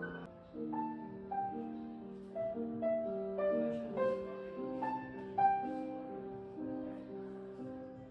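Piano playing a slow, gentle melody: single struck notes roughly every half second to a second, each fading away, over lower sustained notes.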